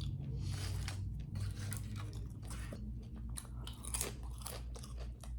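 Close-up chewing and biting of crunchy food, with irregular crunches and mouth sounds.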